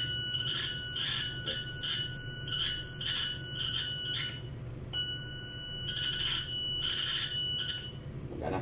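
Eschmann TD311 electrosurgical unit's steady high-pitched activation tone as the pencil is fired in coagulation mode, with irregular crackling and sizzling from the tip sparking on the test pad. The tone breaks off about four and a half seconds in and sounds again half a second later until shortly before the end; the repaired unit is delivering output again.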